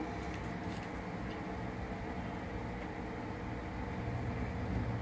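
A steady low hum of mechanical background noise.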